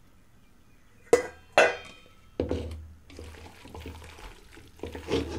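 A metal bowl and spoon clink twice and knock against the pan, then hot oil in a metal kadai starts a steady sizzle as marinated chicken kebab pieces go in to deep-fry.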